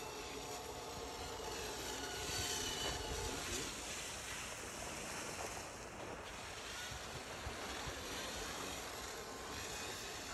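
Motorboat engine running steadily, with wind and water noise.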